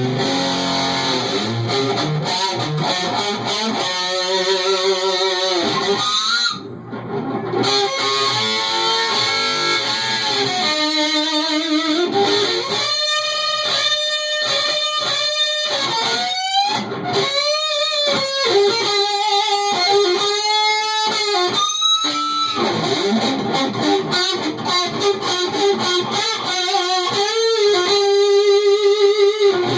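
Electric guitar, a Stratocaster, played through a stock Ram's Head Big Muff fuzz circuit built on a breadboard into a clean amp, giving thick fuzz tones. It plays sustained lead notes with bends and vibrato, with a brief drop in level about seven seconds in.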